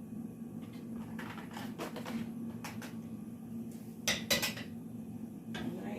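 A serving utensil clinking and tapping against a dish as ground meat is spooned onto nachos: a few light clicks, then two louder clinks about four seconds in, over a steady low hum.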